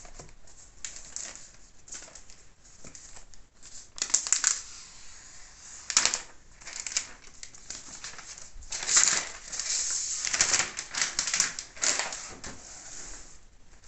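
Handling noise from a laptop and its cardboard box: irregular clicks, taps and rustling as the laptop is lifted out and turned over in the hands. There are sharper bursts about four and six seconds in and a denser stretch of rustling and clicking from about nine to twelve seconds.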